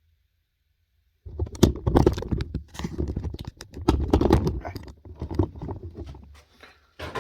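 Water from a sink tap splashing, with irregular sharp clatters, as the freshly tempered steel blade is cooled. It starts abruptly about a second in and dies away near the end.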